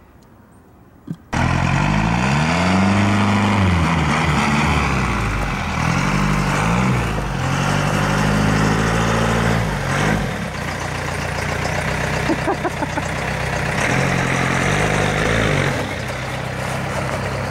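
1986 Ford F-350 pickup's engine running, cutting in suddenly about a second in, its pitch rising and falling several times as the truck moves off across snow, then holding steadier with a few smaller swells.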